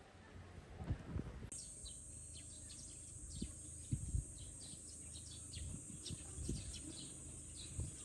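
Outdoor ambience of birds chirping over a steady high-pitched drone, both starting abruptly about a second and a half in, with a few soft low thumps.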